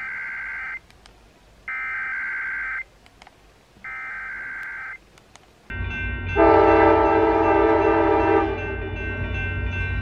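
Emergency Alert System SAME header: three short bursts of warbling data tones about a second apart. Near six seconds in, the loud, steady two-tone EAS attention signal begins.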